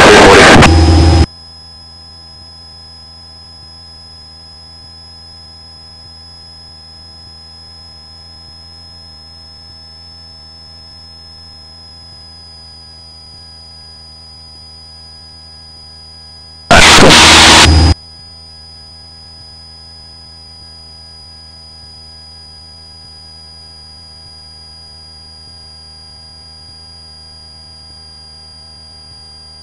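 A light aircraft's cabin drone heard faintly through the intercom feed, steady, with several fixed whining tones. Twice a loud rush of noise cuts in and then stops abruptly, each time for about a second: once at the very start and once about halfway through.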